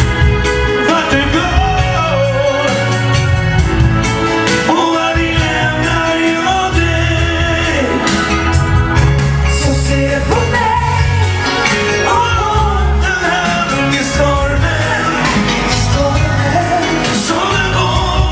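Male singer singing a pop song into a microphone over a backing track with a heavy bass line.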